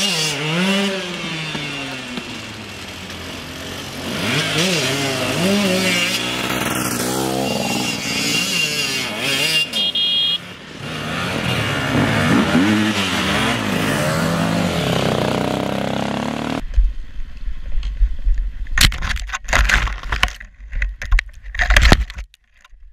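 Dirt bike engines revving up and down as the bikes climb a snowy track, the pitch rising and falling again and again. About three-quarters of the way in, the sound changes abruptly to a close, rumbling wind buffet with loud, irregular knocks and clatter, as heard by a camera riding with a bike pushing through branches.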